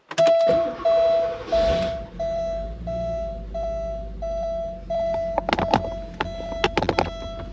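Porsche 928 S dashboard warning chime beeping over and over, about one and a half beeps a second, as the V8 engine is started: a short burst of cranking about a second and a half in, then the engine running low and steady underneath. Several sharp knocks near the end.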